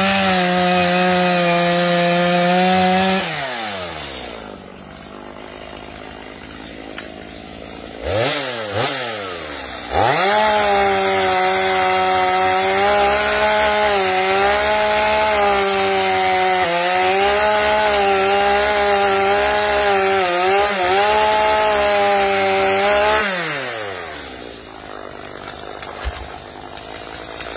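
Stihl MS250 two-stroke chainsaw. It is held at full throttle, falls to idle about three seconds in and gives a short blip of the throttle near eight seconds. From about ten seconds it revs up again and holds high revs for some thirteen seconds while cutting wood, its pitch dipping and recovering under load, before it drops back to idle.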